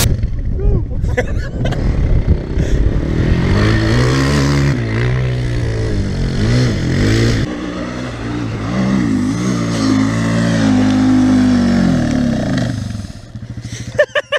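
400 cc single-cylinder four-stroke quad bike engine revving up and down over and over as it rides through sand. The engine sound fades away about a second before the end.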